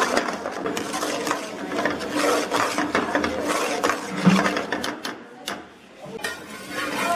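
Steel ladle stirring and scraping a thick gravy around a black iron pan in quick, rhythmic strokes. The scraping stops about five seconds in, leaving a few light clicks.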